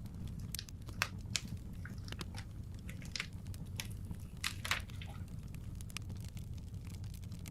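Wood fire crackling: irregular sharp pops and snaps over a steady low rumble, the loudest snaps about a second in and near the middle.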